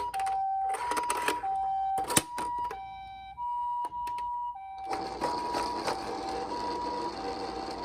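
Toy ambulance's electronic two-tone siren sounding the Japanese ambulance 'pee-po' pattern: a high and a low tone alternating about every half second. A few sharp clicks come in the first few seconds, and from about five seconds in a steady rushing noise joins the siren.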